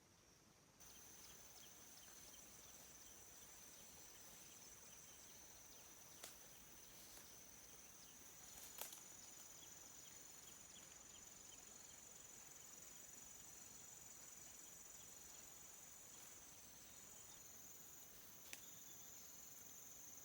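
Faint chorus of insects trilling at a steady high pitch, with a few light clicks.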